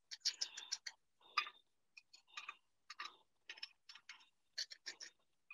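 Pine nuts being sprinkled onto a plated crepe: a scatter of light, irregular ticks as they land.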